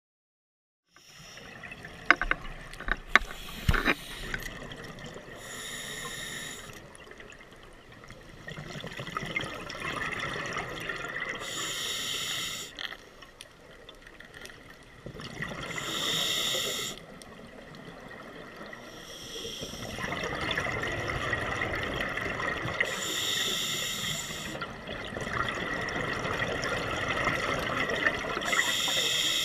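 Diver breathing underwater through a scuba regulator: a short hiss, then a longer rush of exhaled bubbles, repeating about every five or six seconds. A few sharp knocks come near the start.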